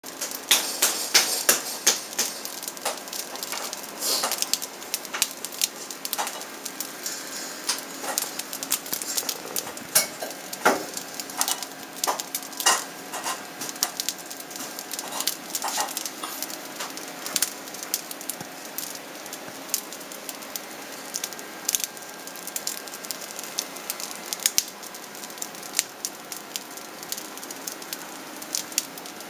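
Freshly baked baguettes crackling as they cool: an irregular patter of tiny sharp clicks, 'chi-chi-chi', from the crust cracking. The clicks are densest at first and thin out toward the end.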